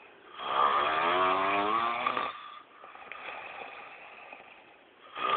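A man snoring loudly with a rasping, chainsaw-like snore. One snore of about two seconds comes about half a second in, then quieter breathing out, and the next loud snore starts near the end.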